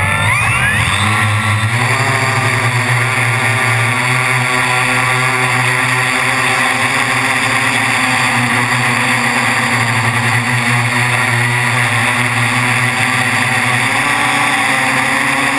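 FPV quadcopter's electric motors and propellers spinning up, rising in pitch in the first second or two as it lifts off, then a loud, steady buzzing whine in flight, heard from the camera mounted on the quad.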